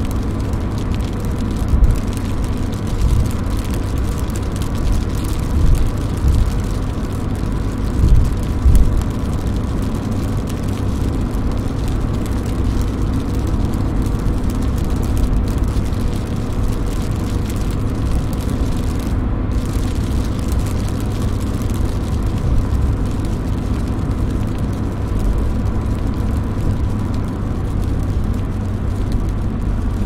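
Car-interior ambience in the rain: a steady low rumble of the car with rain pattering on the roof and windscreen, and a few heavier low thumps in the first ten seconds.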